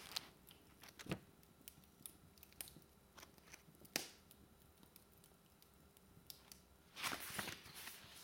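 Wood logs burning in a fireplace, crackling: scattered sharp pops, one about a second in and the loudest at about four seconds, then a quick run of crackles near the end, over a faint steady hiss.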